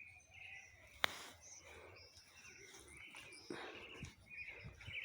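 Faint bird chirps in the background, with a single sharp click about a second in.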